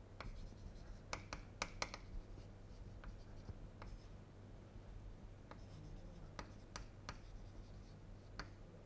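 Chalk writing on a chalkboard: faint scratching with scattered sharp taps as the chalk strikes the board, bunched most closely between about one and two seconds in.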